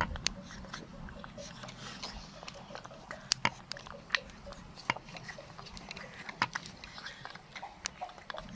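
Baby macaque lapping and slurping from a small plastic cup of milk, with wet smacks and clicks of its lips and tongue scattered irregularly and a few sharper clicks in the middle.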